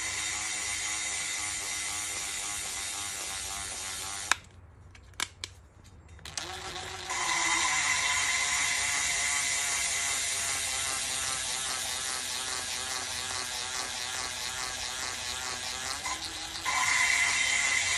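Cordless impact driver running, spinning a valve lapping tool so that the valve is ground against its seat with lapping compound. The driver stops a little over four seconds in, with a few sharp clicks, then starts again about two seconds later and runs on, louder.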